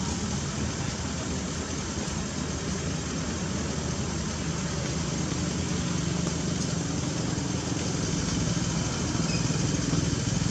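Steady background hiss with a low, even hum, like a running engine, growing slightly louder near the end.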